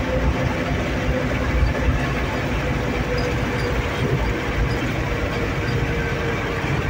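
Vehicle driving at steady speed, heard from inside the cabin: a steady low rumble of engine and tyres on the road with a faint even engine hum.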